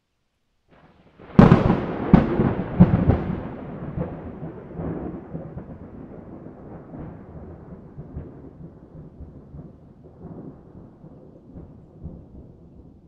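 Thunder from a lightning strike: a sharp crack about a second in, several more cracks close after, then a long rolling rumble that slowly fades.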